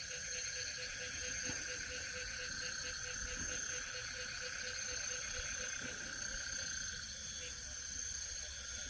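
Night chorus of crickets and other insects, a steady trilling at several pitches at once, with a faint, quick pulsing call underneath that fades out about two thirds of the way through.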